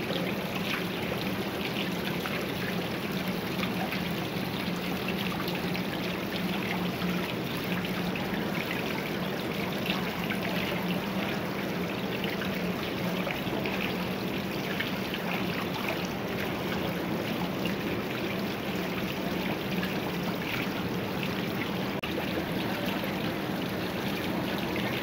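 Water running down a tiled stepped cascade fountain, a steady trickling with a low hum underneath.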